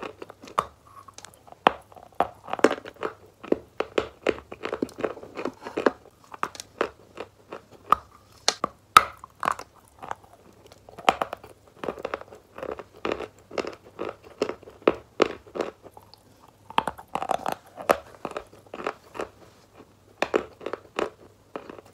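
Wet "Valuichik" chalk being bitten and chewed close to the microphone: rapid sharp crunches, several a second, in clusters with short lighter gaps.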